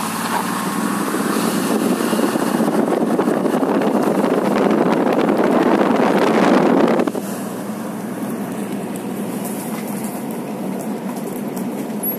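1986 Pontiac 6000 driving on a gravel road, its exhaust running through a universal FoMoCo muffler, heard out of the open driver's window together with tyre noise on the gravel and wind, growing louder. About seven seconds in it drops suddenly to a steadier, quieter exhaust hum as heard inside the cabin.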